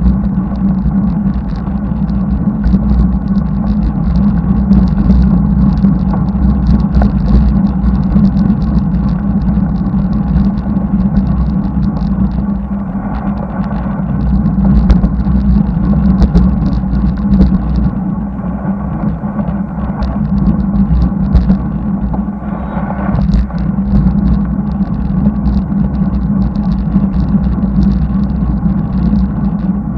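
Steady wind and road rumble on the microphone of a camera riding on a moving bicycle, with motor traffic passing on the highway.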